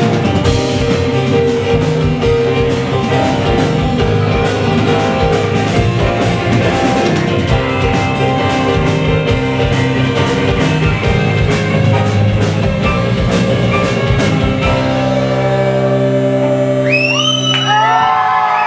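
Live alt-rock band of electric guitars, keyboard and drums playing the end of a song. The drums stop about three-quarters of the way in and a final held chord rings on. Near the end the audience starts whooping.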